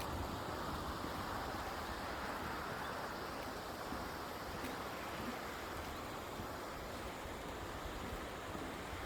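Steady rushing of a flowing river: an even, unbroken hiss of water.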